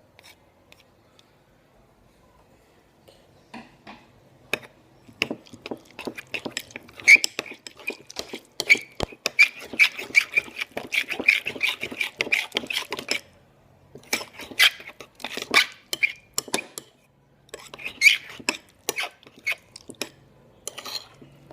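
A utensil stirring and scraping in a container while slime is mixed, with rapid clicks and knocks against the container's sides; the stirring is fastest in the middle, pauses briefly twice, then picks up again.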